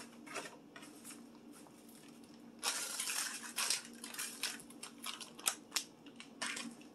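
A plastic bag of frozen stir-fry vegetables crinkling and tearing as it is opened and handled, starting a little under three seconds in, followed by several sharp clicks and knocks.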